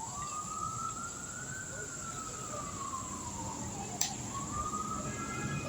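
A siren wailing slowly, its pitch rising and falling about once every four seconds, over a steady high-pitched insect drone. A single sharp click about four seconds in.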